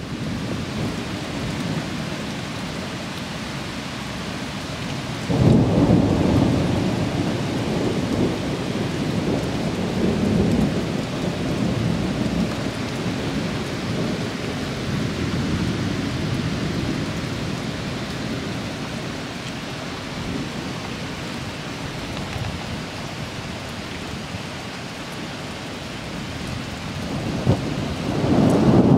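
Thunder from a cloud-to-ground lightning strike: a sudden loud clap about five seconds in, then a long rolling rumble that slowly dies away, over steady rain. Another rumble swells near the end.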